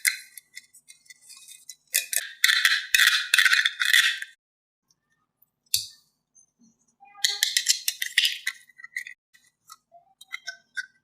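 Bursts of rattling, crinkly noise: a longer stretch about two seconds in, another about seven seconds in, and a few short clicks between.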